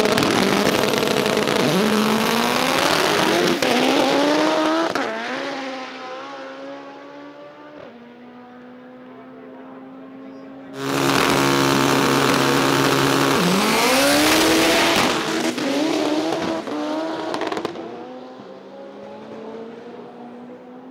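Drag race cars, one a white Fox-body Ford Mustang, launching and accelerating hard down the strip, engine pitch climbing and dropping back with each gear shift as they pull away and fade. About eleven seconds in, the loud engine sound comes back suddenly as the cars pass at speed further down the track, then fades again.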